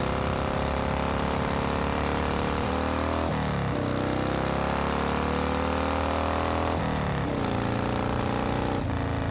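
Motorcycle engine running under acceleration. Its pitch drops sharply about three seconds in and again about seven seconds in, and climbs after each drop.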